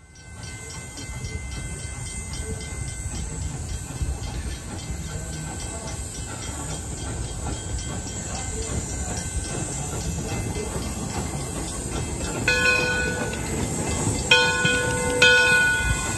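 Detroit & Lima Northern #7, a 4-4-0 American-type steam locomotive hauling passenger cars, running past and growing steadily louder as it nears. A few short ringing tones sound in the last few seconds.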